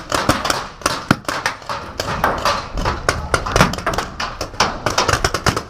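Rapid, irregular sharp pops and clicks of paintball markers firing, several shots a second.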